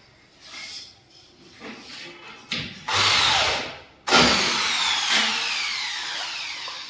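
Electric drill drilling into the galvanized steel channel of a gypsum-board ceiling frame. It runs in two bursts: a short one, then a longer one whose pitch slowly sinks.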